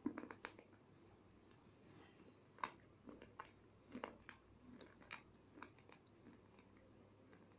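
Faint, irregular crisp clicks and light crunches of broken Bombay-brand slate pencil pieces knocking against each other as a hand sorts through them, the sharpest click about two and a half seconds in.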